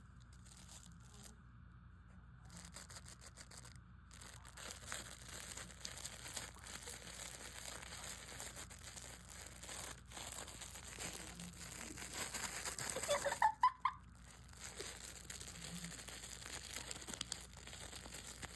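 Steady crinkling and rustling with many small clicks, as the piglet roots and noses at crinkly toys. About thirteen seconds in, a short, loud squeak rises in pitch.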